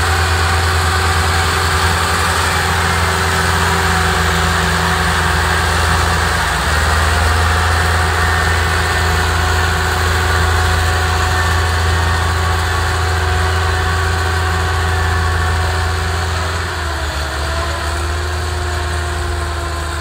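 Diesel engines of two farm tractors running under load, a Massey Ferguson towing a second tractor that pulls a loaded trailer over soft ground. A steady drone whose pitch drops slightly and gets a little quieter near the end.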